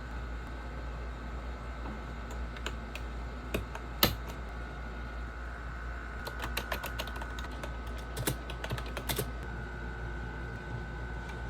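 Keystrokes on a retro typewriter-style keyboard. A few scattered clicks, then one loud clack about four seconds in, then a quick run of keystrokes in the middle of the stretch.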